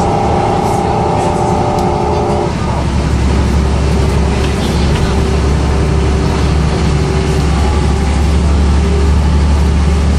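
Mercedes-Benz O405 bus heard from inside the cabin, its ZF automatic gearbox giving a high, steady multi-tone whine that cuts off about two and a half seconds in as the gearbox changes up. After that a deep, steady diesel drone takes over, with a faint whine still running above it.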